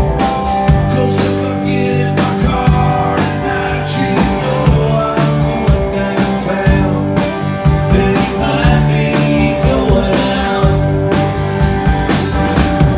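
A live country-rock band playing: drum kit keeping a steady beat under acoustic guitar, electric guitar and keyboard, with the lead vocal singing for part of the time.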